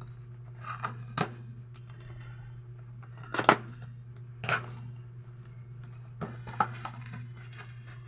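Scissors snipping and a plastic pouch crinkling as it is cut open: a handful of separate sharp crackles, the loudest about three and a half seconds in.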